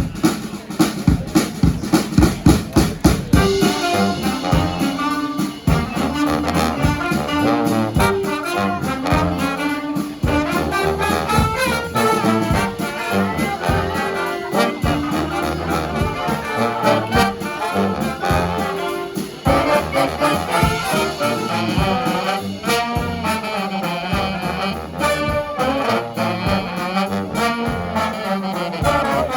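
Brass band playing live: drums alone for the first few seconds, then the horns come in about three seconds in with a melody and held notes over the beat.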